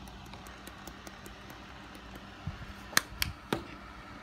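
A small electric fan running steadily, blowing across water in a plastic tub. About three seconds in, three sharp clicks come in quick succession.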